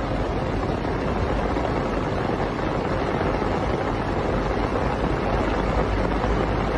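Steady rushing noise of strong wind and water, with a low rumble of wind buffeting the microphone.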